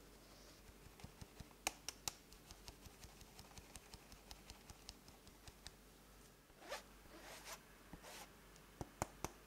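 Cake flour being sifted through a fine-mesh sieve into batter: quiet, rapid ticking as the sieve is tapped, about five taps a second. Then a brief rustling swish and a few sharper clicks near the end.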